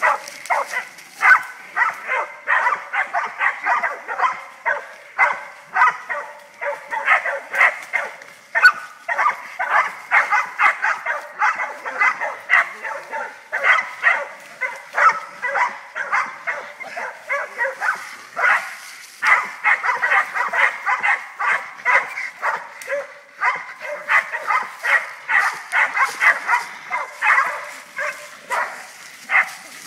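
Young hog dogs barking rapidly and without let-up, several barks a second, baying a wild hog.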